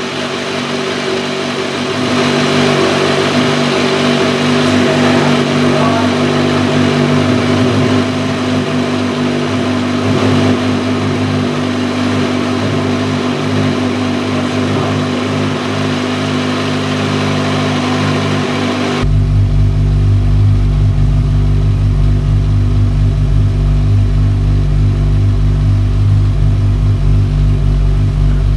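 Kawasaki Z1000 inline-four motorcycle engine idling steadily through a Vance & Hines slip-on quad-pipe exhaust. About two-thirds of the way through, the sound abruptly turns much deeper and bassier.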